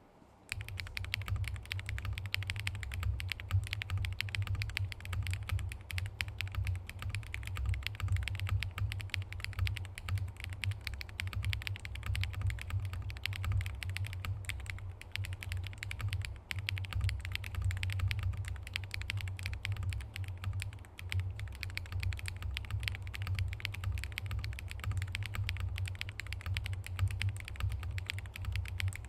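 Typing on a Transition Lite TKL mechanical keyboard with SW x Haimu MP linear switches and glossy KBS Hey8all keycaps: a fast, steady run of keystrokes starting about half a second in.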